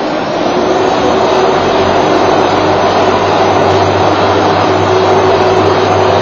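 A loud, steady mechanical whir with a constant hum, swelling over the first second and then holding level.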